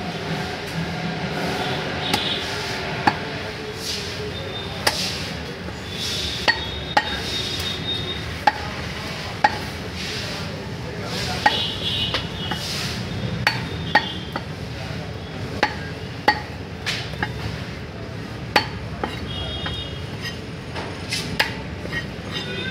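Heavy cleaver chopping pieces of catfish on a wooden log chopping block: a sharp knock every second or so, irregularly spaced, over a steady background of voices.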